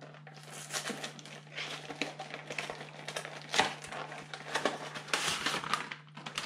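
Cardboard box being pulled open by hand, its inner tray sliding out, with scratchy rustling of card and crinkling of plastic packaging, broken by a few short sharp clicks.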